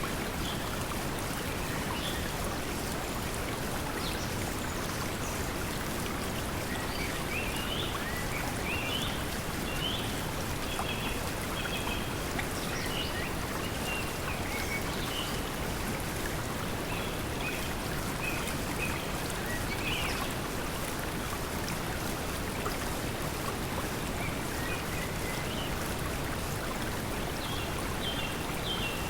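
Steady pink noise blended with flowing water, with small birds chirping now and then.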